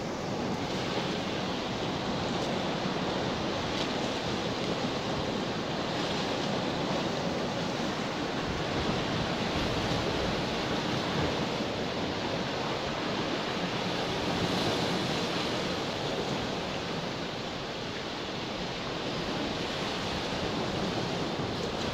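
Steady wash of sea waves, mixed with wind noise on the microphone, rising a little and easing back without a break.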